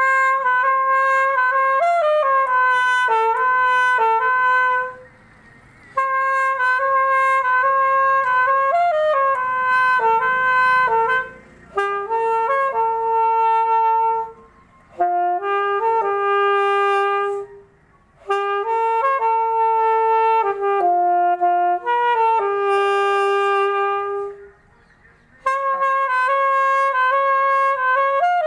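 Solo alto saxophone playing a slow song melody in phrases of held and slurred notes, with short breath pauses between phrases.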